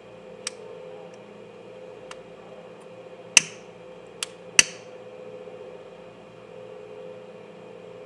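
Five short, sharp clicks and taps as the paracord and a disposable lighter are handled, the two loudest a little past the middle, over a steady background hum.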